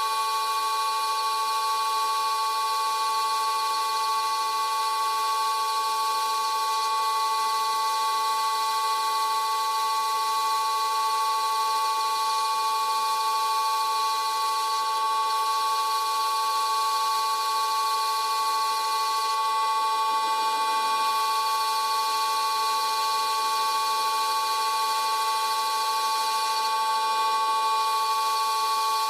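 Vintage Karger metal lathe running at 400 RPM while turning aluminium: a steady machine whine made of several held high tones.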